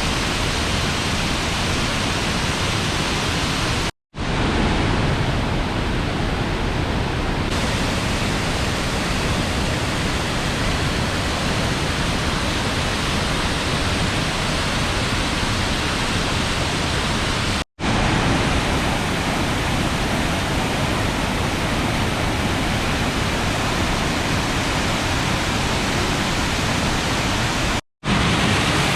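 Steady rushing of a clear mountain river's water tumbling over rocks, a continuous full hiss with no other sounds. It drops out for an instant three times: about 4 s in, just past halfway, and near the end.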